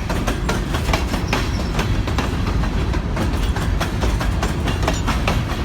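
Freight train of a grain train rolling past, its wheels clicking over rail joints in a rapid, uneven clatter over a steady low rumble.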